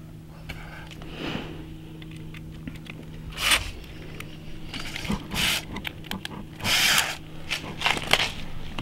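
Cordless drill run in about four short bursts against the frame of a dog-house wall panel, the longest near the end, with small clicks of handling in between.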